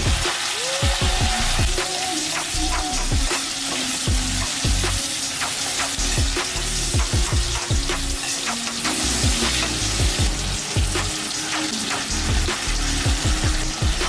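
Tomatoes and aromatics sizzling steadily in hot oil in a steel wok, with a spatula clinking and scraping against the pan at irregular moments as they are stirred.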